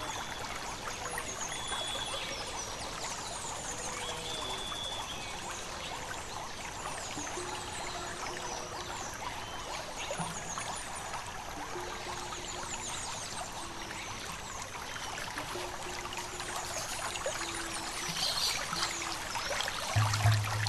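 Mountain stream running and trickling over rocks, a steady wash of water, with faint high chirps above it. A low steady hum comes in near the end.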